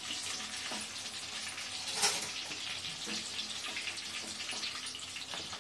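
Hot oil sizzling steadily in a kadai around fried small brinjals as they are lifted out with a wooden spatula, with a few light knocks, the loudest about two seconds in.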